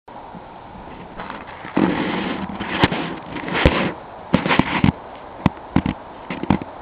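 Audio from a small camera on a Techone Angel EPP foam RC plane in low flight: wind buffets the microphone in gusts, with many sharp pops and clicks, over a faint steady whine.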